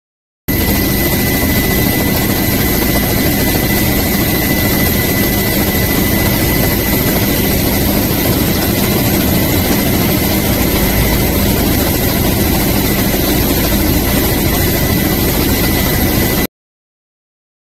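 Helicopter engine and rotor running steadily, heard from aboard, a loud rushing noise with a constant high whine over it. It starts about half a second in and cuts off suddenly near the end.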